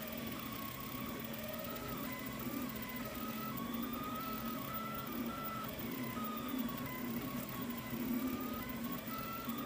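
Delta 3D printer running a print: its stepper motors whine, the pitch rising and falling in short glides as the print head moves. A steady hum from the hotend cooling fan sits under it.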